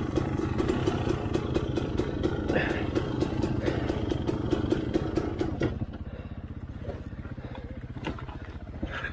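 Off-road dirt bike engine running on throttle over rough ground, then dropping to a quieter, steady run about two-thirds of the way through.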